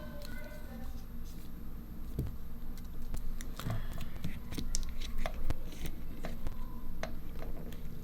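Scattered small clicks, taps and light scrapes of hands handling parts inside an opened iPhone, irregular and a few each second.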